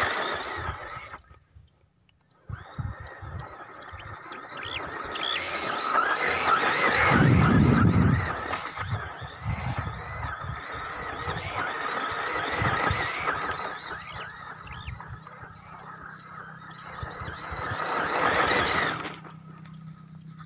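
Brushless motor of a ZD Racing B10E 1/10 RC buggy (3650-size, 3900 kV, run on 3S) whining as the buggy is driven hard over rough grass, rising and falling with the throttle, with low rumbling underneath. About a second in it cuts out briefly, then it swells loudest a few seconds later and again near the end.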